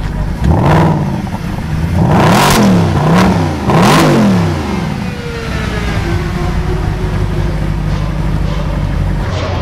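Mercedes-Benz SLS AMG's 6.2-litre V8 blipped up and down about four times, with sharp exhaust cracks at the top of the later revs, then settling back to a steady idle.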